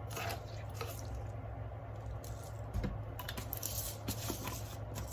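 Soft kitchen handling sounds of seasoning being spooned into rice in a rice cooker pot: scattered light taps and rustles, with a small knock near the middle, over a low steady hum.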